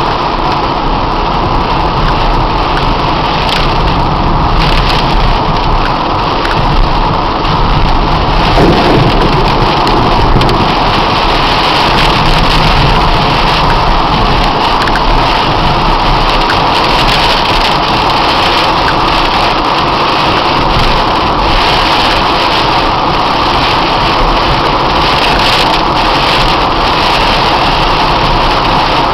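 Torrential rain on a car's roof and windshield, heard from inside the moving car: a loud, steady rush.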